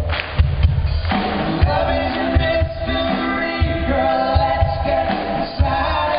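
Live pop concert: a male lead vocal singing over a full band with a low drum beat, recorded from among the audience, with the upper treble cut off.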